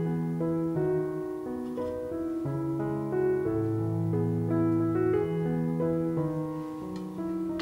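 Background piano music, with held notes that change every half second or so.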